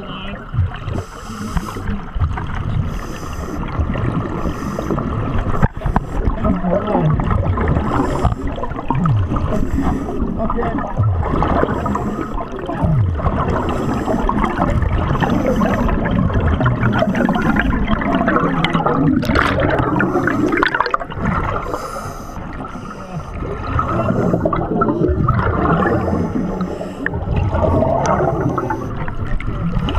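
A diver's regulator breathing underwater, with exhaled air bubbling and gurgling past the microphone, swelling and fading with each breath. A faint high hiss pulses about once a second.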